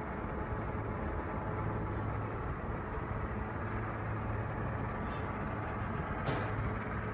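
Waste-processing machine running steadily, a constant low hum under a rush of mechanical noise, with a single sharp tick about six seconds in.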